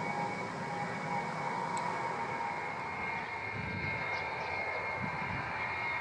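Distant jet airliner engines whining steadily. Wind gusts rumble on the microphone in the second half.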